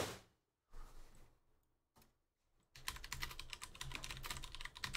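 Typing on a computer keyboard: after a near-silent pause, a fast, uneven run of key clicks starts a little past halfway and keeps going.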